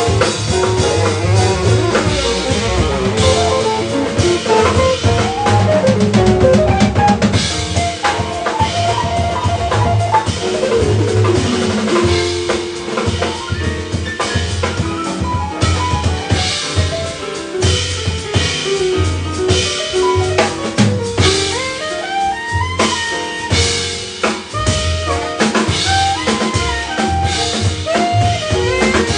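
A small jazz band playing live, with the drum kit loud and busy, alongside tenor saxophone, double bass, electric guitar and piano.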